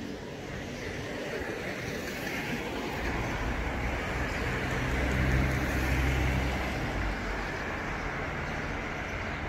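Street traffic noise: a car's engine and tyre rumble swells, loudest about five to six seconds in, then fades, over steady road noise.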